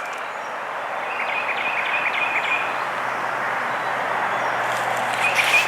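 Steady rushing outdoor background noise, with a bird's rapid trill of repeated high notes about a second in and again near the end.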